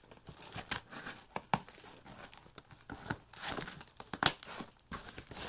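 Scissors cutting through a cardboard box wrapped in layers of packing tape: irregular sharp snips of cardboard mixed with the crinkle and tear of the tape, the loudest cut a little past four seconds in.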